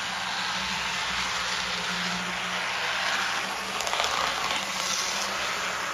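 Repowered brass HO-scale EMD GP7 model locomotive running at full speed around the track: a steady motor hum over an even rolling hiss of the wheels on the rails.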